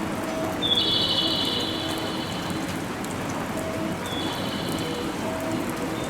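Railway station platform ambience: a short, high electronic chirp repeats about every three and a half seconds, with softer, lower repeating beeps, over a steady hiss.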